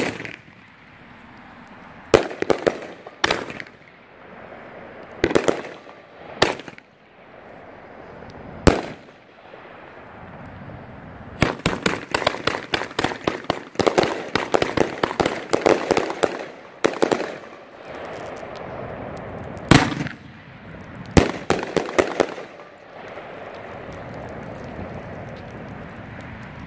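A Red Apple Fireworks multi-shot cake firing. Single shots launch and burst a second or two apart, then a rapid volley of bangs and crackle comes from about 11 to 16 seconds in. A few more bangs and a short quick cluster follow, finishing a few seconds before the end.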